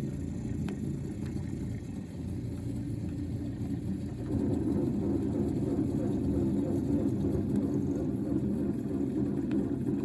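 Small Mercury 3.3 hp two-stroke outboard motor running steadily on a jon boat, getting louder about four seconds in.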